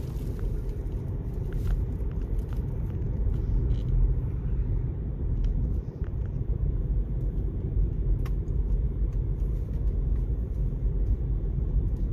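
Steady low road-and-engine rumble of a car on the move, with a couple of faint ticks.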